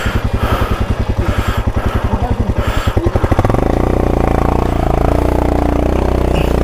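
Motorcycle engine running with a rapid, even beat, then opened up about three and a half seconds in so that the beats merge into a steady drone.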